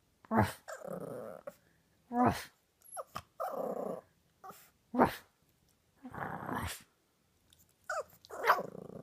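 Boxer puppy giving short sharp yips, each running into a longer, rough, growly howl, about four times over.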